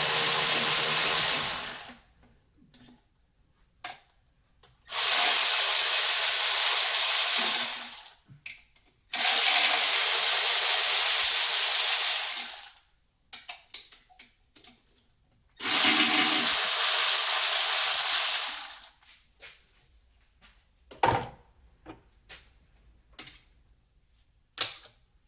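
Handheld power tool running in four bursts of two to four seconds each, spinning out bolts during an engine teardown, followed by a string of small clicks and taps as parts and tools are handled.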